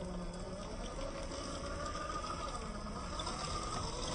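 Traxxas TRX-4 RC scale crawler's electric motor and geared transmission whining, the pitch drifting up and down with the throttle.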